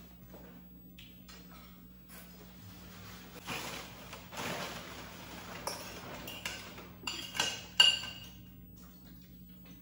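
Kitchen clutter being cleared: a plastic bag rustling and things knocking, then a few sharp clinks of crockery about seven to eight seconds in, the last one the loudest and ringing briefly.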